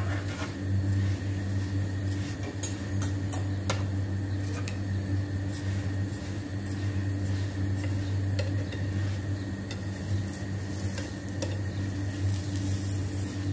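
Metal tongs clicking and scraping against a nonstick frying pan as a paratha is moved and turned, with a few sharp clicks mostly in the first few seconds. Under it runs a faint sizzle from the pan and a steady low hum.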